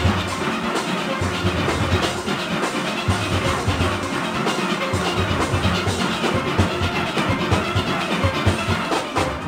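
Steel orchestra playing: many steel pans together over drums and percussion, with a steady driving beat.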